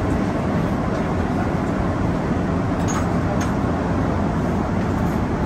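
Steady cabin noise of a Boeing 747-8 airliner in flight, an even rushing roar, with two faint clicks about three seconds in.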